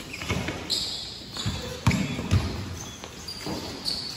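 A basketball bouncing on a gym court: about four irregular thumps that echo in the hall, amid players' voices.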